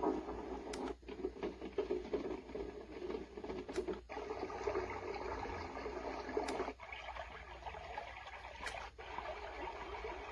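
White noise machine being stepped through its built-in sounds: a short button click about every two to three seconds, each followed by a different steady noise.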